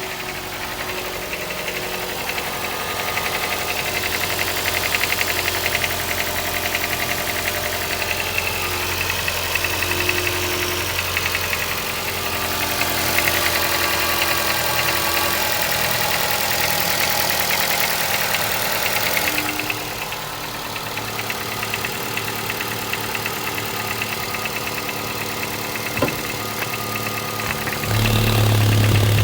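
Nissan X-Trail engine idling with a fast, even metallic ticking from the valvetrain: the knock of worn or mis-sized valve shims, typical of excessive valve clearance. Near the end a louder low hum comes in.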